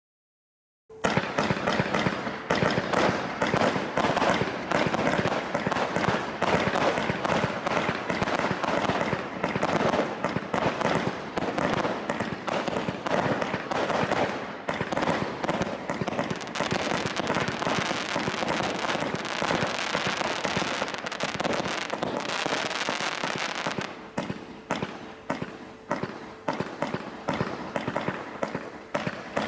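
A 200-shot firework barrage cake (Bright Star Satanic Desecration) firing from about a second in: a dense, unbroken run of launches, bursts and crackling. After about 24 seconds it thins into separate shots, a few a second.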